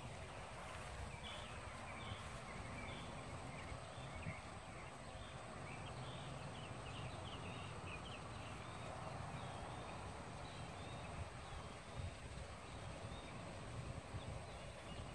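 Outdoor ambience: many short, high bird chirps over a steady low rumble.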